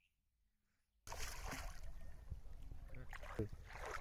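About a second of near silence, then an abrupt switch to steady outdoor wind rumble on the microphone, with people's voices talking now and then.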